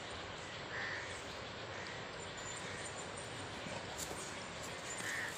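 Two short, harsh bird calls, one about a second in and one near the end, over a steady background hiss.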